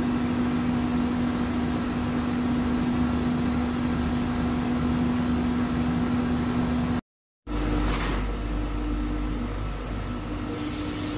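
Steady machinery hum: a droning tone over an even background noise. The sound drops out for half a second about seven seconds in, then resumes with a deeper rumble underneath and a short high squeak about a second later.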